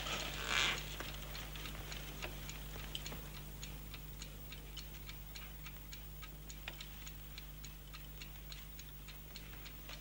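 Pendulum wall clock ticking steadily and evenly in a quiet room, with a brief noise about half a second in.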